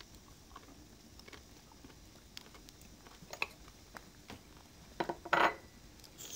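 Quiet room tone with a few light clicks and knocks of dishes and utensils on a table, and a short rustle about five seconds in.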